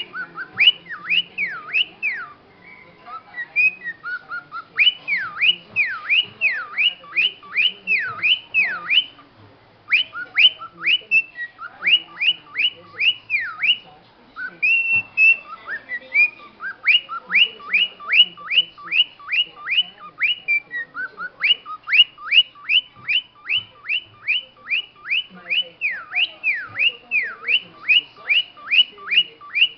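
Cockatiel whistling long runs of quick rising and falling notes, about two to three a second with short breaks, in imitation of a car alarm siren.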